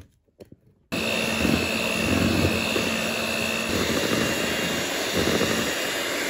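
Hamilton Beach electric hand mixer switched on about a second in and running steadily with a whine, its beaters whipping egg whites and sugar toward firm peaks.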